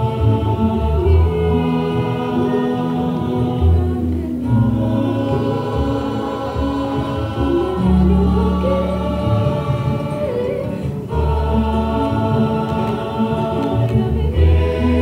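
Rondalla performing live: a group of voices singing sustained harmonies over acoustic guitars and a double bass, with short breaks between phrases about four and a half and eleven seconds in.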